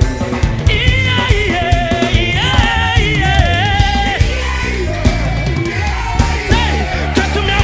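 Live gospel praise band music: a male singer's voice over keyboard, bass and a steady drum beat.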